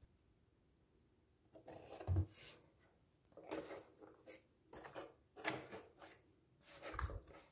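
Cardboard box being opened and handled: its flaps rustle and scrape in a string of short bursts, with a soft thump about two seconds in and another near the end.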